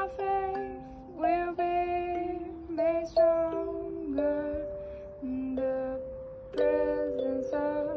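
Kalimba played as a slow melody: single plucked tines and the odd two-note chord, each note ringing on and fading slowly, so that the notes overlap.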